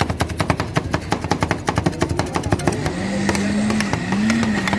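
Metal spatulas rapidly chopping ice cream mix on the frozen steel plate of a rolled-ice-cream stall: a fast metallic clatter of about seven strikes a second. The strikes thin out about three seconds in, when a steady motor-like hum with a slight waver comes in.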